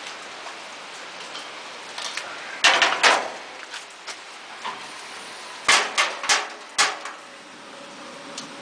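Propane smoker's push-button igniter being clicked to light the gas burner: six sharp clicks, two close together about three seconds in, then four more about a second apart, before the burner catches.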